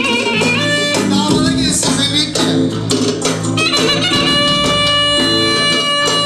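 Live band playing dance music on keyboard, drums and clarinet, with long held notes from about four seconds in.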